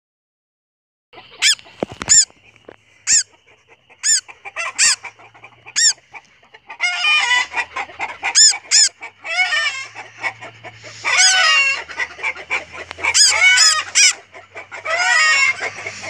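Female northern cardinal held in a hand, calling in distress: about six separate sharp chips in the first six seconds, then bursts of rapid, harsh squawking from about seven seconds on.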